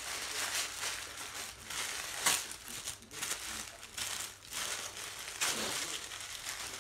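Shiny gold gift-wrapping paper crinkling and tearing as hands rip it off a package. The rustling comes in uneven bursts, with two sharper, louder rips about two seconds in and again near five and a half seconds.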